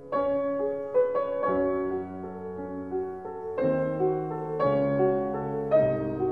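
Slow, gentle solo piano music, with new notes and chords struck about once a second and left to ring.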